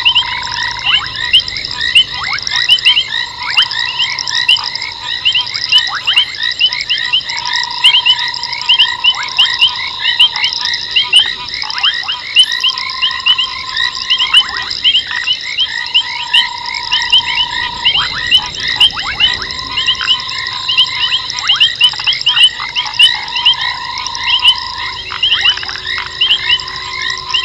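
Dense night chorus of frogs at a waterhole: many overlapping rapid high chirps over a constant high whine, with a lower trill a couple of seconds long repeating every few seconds.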